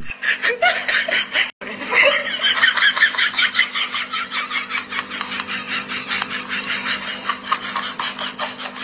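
Laughter, a long run of quick laughs of several a second, starting just after a brief gap about a second and a half in.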